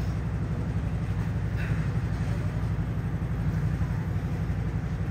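Steady low rumble of background noise, with no voice over it.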